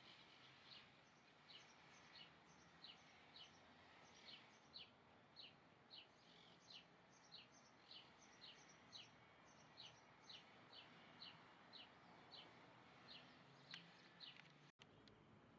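A small bird calling over and over: short, high chirps that fall in pitch, about two a second, faint over a low background hiss. A brief dropout near the end.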